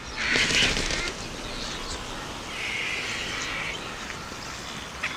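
Vultures landing at a carcass: wings flapping and harsh rasping calls, in two loud stretches of about a second each, one right at the start and one around the middle.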